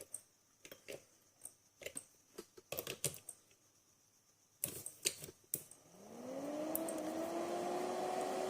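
Several sharp clicks of the repaired battery charger's switch being flicked and handled. About six seconds in, the charger starts up with a hum that rises in pitch and then holds steady, running on charge into a battery.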